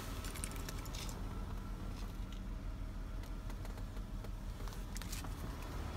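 Low steady rumble inside a car's cabin, with faint scattered clicks and rustles from a handheld phone being moved around.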